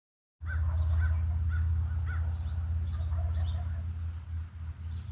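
Birds calling: a series of short calls about twice a second, then thinner, higher calls, over a steady low hum.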